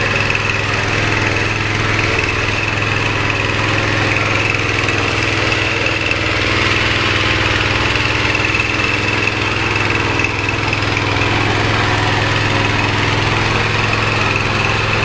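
Small 5.5 hp single-cylinder petrol engine running at a steady speed, driving a horizontal pellet-making machine.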